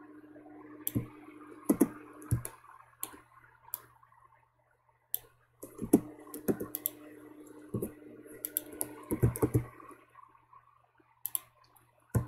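Scattered clicks of a computer mouse and keyboard, about a dozen at irregular intervals, while drawing in Blender. A faint steady hum lies under them and drops out for a few seconds near the middle.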